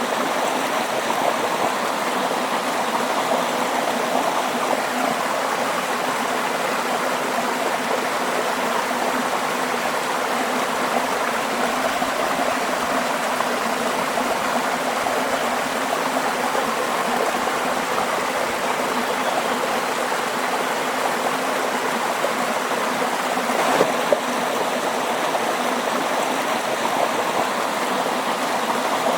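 Running water, like a stream, flowing steadily in an even, unbroken rush.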